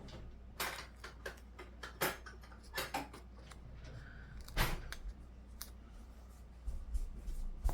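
Paper stickers being peeled from a sheet and pressed into a planner: scattered light clicks, taps and short paper rustles.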